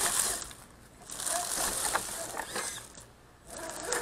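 Redcat Gen7 RC crawler driving over rough trail: noisy surges of drivetrain and tyre sound that swell and fade twice, with short rising-and-falling motor whines.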